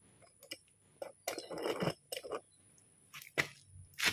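Handling noises while getting at a motorcycle battery: scattered clicks and knocks, with a short scraping rustle about a second and a half in.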